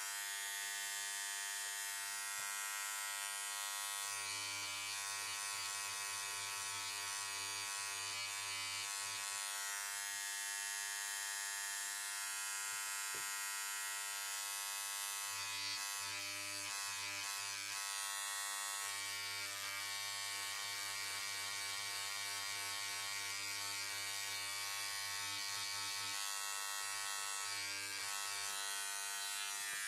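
Air scribe buzzing steadily, its vibrating stylus chipping shale matrix away from a trilobite fossil.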